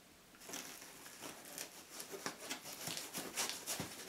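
Packaging being handled: a power brick pulled out of its slot in a foam insert, with irregular rustling and a few light knocks and clicks.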